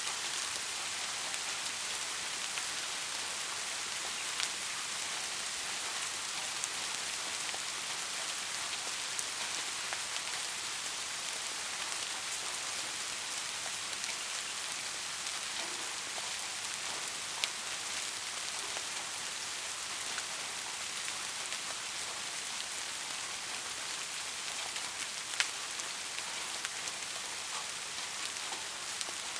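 Steady rain falling as an even hiss, with the odd louder drop ticking out of it, two of them standing out: one a little past halfway and one near the end.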